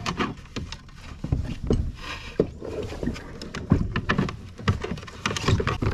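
Irregular knocks, thumps and rustling from gear and feet being moved around in a kayak.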